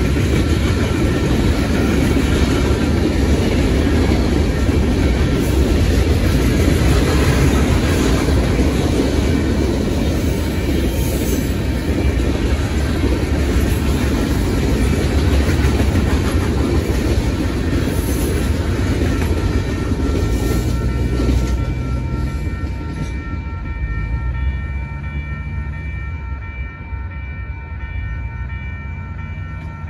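Freight cars of a train rolling past over a grade crossing, a dense steady rail noise that fades away over the last several seconds. As it fades, the crossing signal's bell is left ringing steadily.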